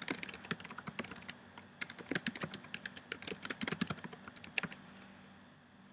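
Typing on a computer keyboard: a run of quick keystroke clicks that stops near the end.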